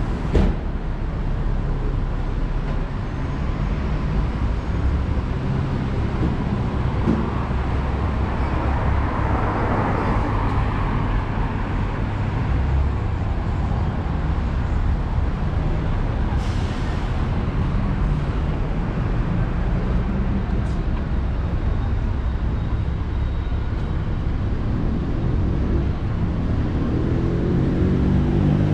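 City street traffic: a steady rumble of car and bus engines, swelling as a vehicle passes close about ten seconds in, with a couple of brief sharp noises later on.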